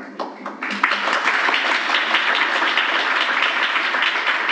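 Audience applauding: a few scattered claps, then full applause from about half a second in.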